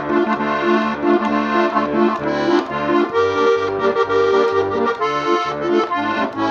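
Accordion playing an instrumental passage: sustained chords and melody over a steady pulse of bass notes.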